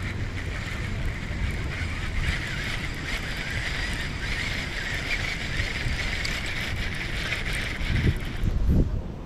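A baitcasting reel being cranked, a steady whir of its gears, over low wind rumble on the microphone. The whir stops near the end, with a couple of dull handling thumps.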